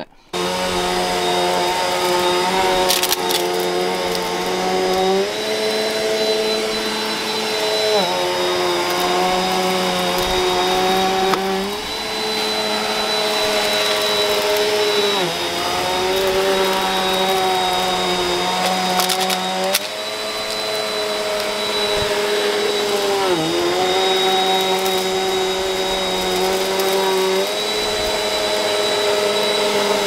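Eureka Airspeed bagless upright vacuum cleaner running on carpet: a steady motor hum with a thin high whine, its pitch shifting up or down every few seconds as it is worked over the carpet.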